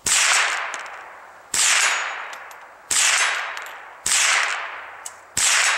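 Marlin Model 60 .22 LR semi-automatic rifle firing five shots about one and a half seconds apart at a steel gong. Each sharp report is followed by a ring that fades over about a second.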